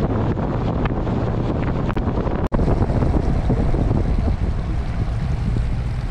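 Wind buffeting the microphone, a loud steady rumble, which cuts out for an instant about two and a half seconds in.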